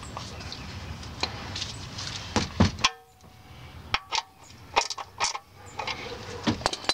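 Hand tools working on a steel oil pan: a socket wrench on an extension gives scattered sharp metal clicks and clinks, a few ringing briefly, with the loudest cluster a little past two seconds in. A rough, steady hiss under the first three seconds then stops.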